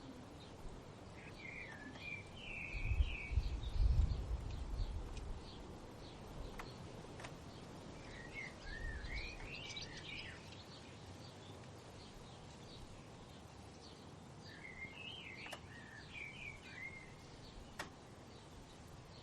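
A songbird singing three short warbling phrases about seven seconds apart, with faint high chirps from other birds over a steady forest hiss. A low rumble swells briefly a few seconds in.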